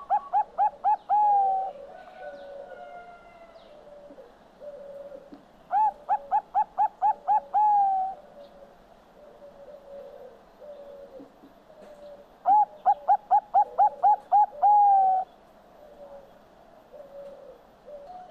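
Zebra dove (perkutut bangkok) singing its cooing song: loud runs of about seven short, rapid coos, each run closing on a longer drawn-out note and lasting about two seconds. One run ends just after the start, and two more follow about six seconds apart, with softer, lower coos between them.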